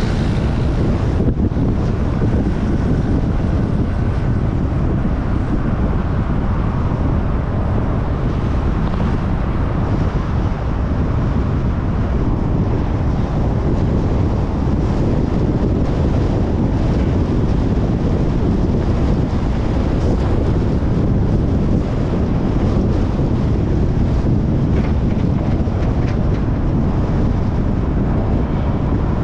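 Steady wind noise on the microphone over road and traffic noise from a car driving along city streets.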